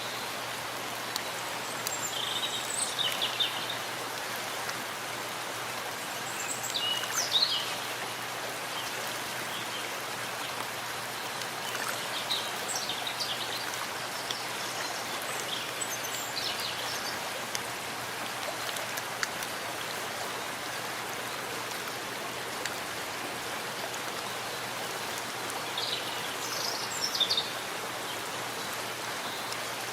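Steady rain falling in a forest. Birds chirp briefly a few times over it.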